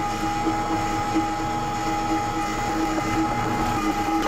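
Weston electric meat grinder running steadily with a constant motor whine, grinding beef and pork back fat out through the plate.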